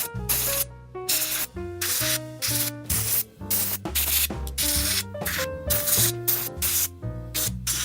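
Background music with piano and a bass line, with regular scratchy strokes about two or three times a second, like brushing or rubbing.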